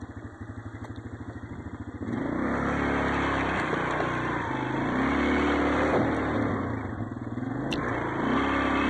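Motorcycle engine idling with rapid, even pulses, then pulling away about two seconds in and revving up and down.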